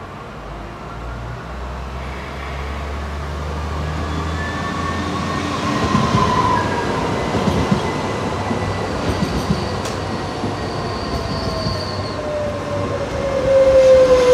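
A train passing, growing steadily louder, its wheels clattering over the rails from about halfway in, with a whine that slides down in pitch.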